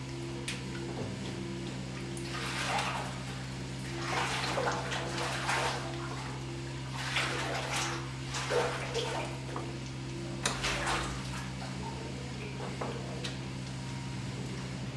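Wet plastic cheese molds and boards being handled and shifted in a wooden cheese press, giving irregular splashy knocks and rustles. Under them runs a steady machinery hum with a faint regular pulse about twice a second.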